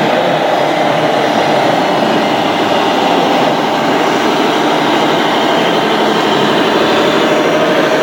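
Radio-controlled model construction machines running: a steady, loud mechanical whirring and grinding from small motors and gearboxes, with an even hum underneath.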